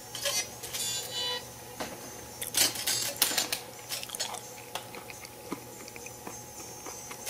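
Music reproduced by the arc of a flame speaker driven by the modulation of a Collins vacuum-tube AM transmitter. It comes out thin and crackly, broken by many sharp arc crackles, over a faint steady hum.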